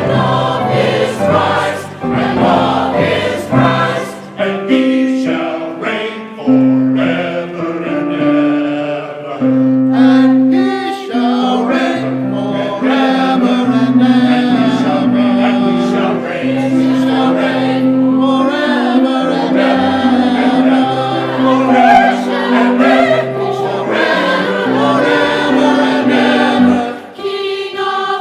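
Choir and congregation singing a Christmas carol together, many voices holding long sung notes.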